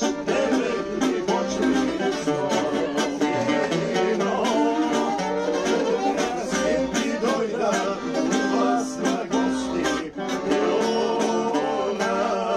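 Live Bulgarian folk music: two men singing together over a quickly strummed tambura, with accordion and gadulka.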